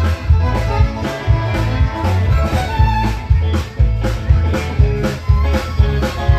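A live band plays an instrumental passage on fiddle, electric guitar, electric bass and drum kit, with a heavy bass line and a steady drum beat.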